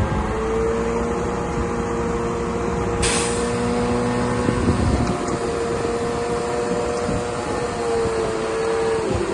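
DH17 C2 LGP bulldozer engine running steadily under work. Its pitch sags briefly near the end as it takes load, and a short hiss comes about three seconds in.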